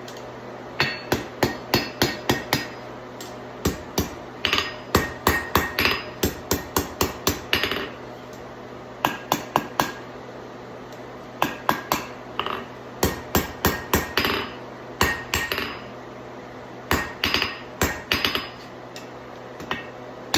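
Blacksmith's hammer striking a hot 3/8 inch round steel bar on the anvil, rolling the end into a scroll. The blows come in quick runs of about three or four a second, each with a short metallic ring, with brief pauses between the runs.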